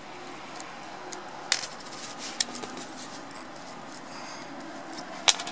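Small metal washers being worked off a dismantled starter motor by hand: a few light metallic clicks, with one sharper clink near the end.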